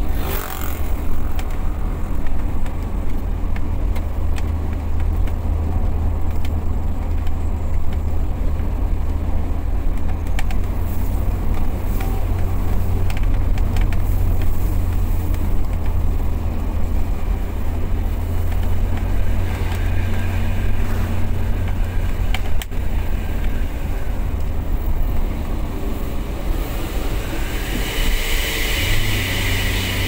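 Car engine and tyre noise while driving on a road, a steady low drone. Over the last few seconds a higher hiss builds and the engine note steps up just before the end.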